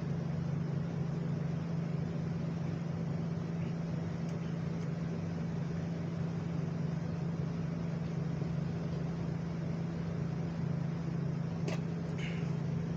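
A steady low machine hum, with a faint click a little before the end.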